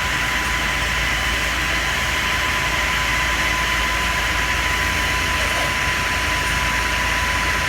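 An engine running steadily, with a constant high whine over a low rumble.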